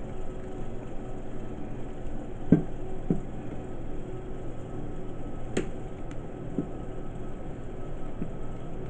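Faint plastic clicks and taps, about six of them spread out, as a laptop's plastic screen bezel is worked loose from its clips by hand, over a steady low background hum.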